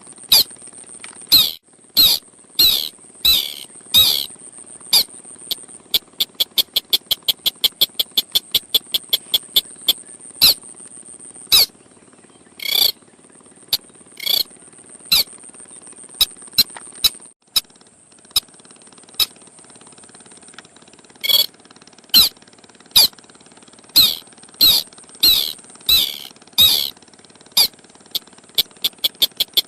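Lure recording of the sintar sawah bird calling: sharp, separate notes, some sweeping downward, alternating with fast runs of short clicking notes at about five a second. A steady high hiss runs underneath.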